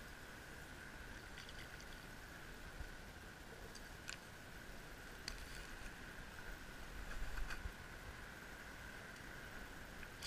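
Faint water and wind noise around a kayak, with a steady faint high whine throughout. A few light clicks, and a low bump about seven and a half seconds in.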